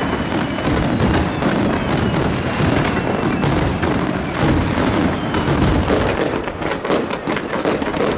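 Fireworks display: a continuous barrage of aerial shells bursting and crackling, the bangs overlapping so densely that there is no gap between them.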